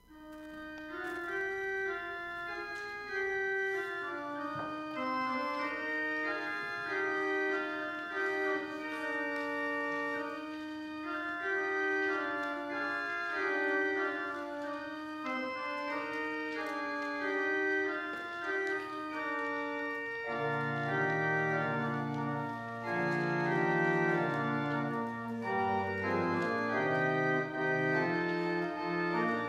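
Church organ playing a slow passage of held chords that change about once a second; a deeper bass line joins about two-thirds of the way through.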